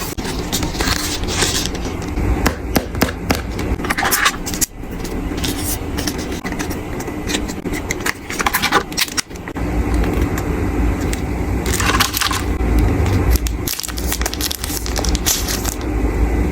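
Phone box and packaging being handled and opened: rustling, crinkling and repeated small clicks and taps, with a steady low rumble underneath that grows stronger from about ten seconds in.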